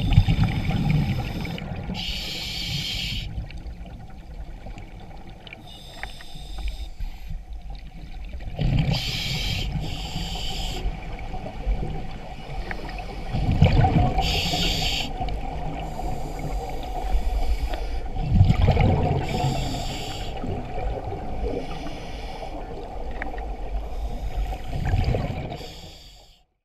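Scuba diver breathing through a regulator, heard underwater: hissing inhalations alternate with low, bubbling exhalations every few seconds over a steady underwater hum. The sound fades out near the end.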